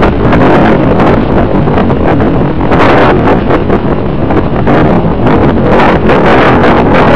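Loud, unbroken rush of wind buffeting the microphone of a camera riding on a radio-controlled model plane in flight, surging up and down unevenly.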